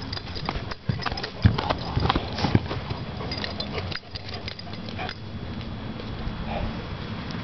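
Paws of two young German Shepherds running on a dirt yard, with a cluster of sharp knocks and thumps in the first few seconds and a few lighter ones around five seconds in.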